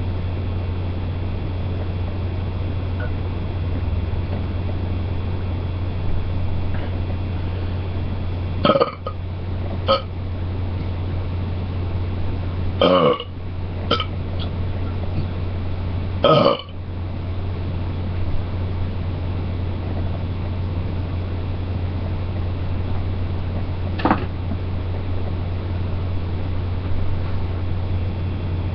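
A person belching after drinking Coke: about half a dozen burps, two short ones about a third of the way in, two longer, louder ones a little before halfway, and a last short one later on. A steady low hum runs underneath.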